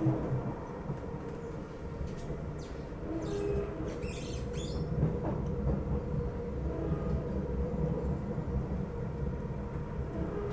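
Cabin noise of an SMRT C751B metro train running along the track: a steady rumble of wheels and running gear with a faint hum, and a few brief rattles a few seconds in.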